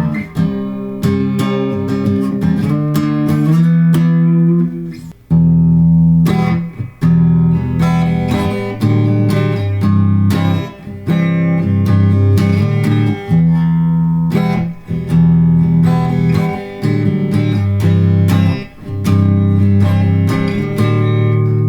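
Electric guitar from a Les Paul-style kit (carved mahogany body) played through an amp on its bridge pickup: strummed chords that ring out, with sharp pick attacks and brief stops every few seconds.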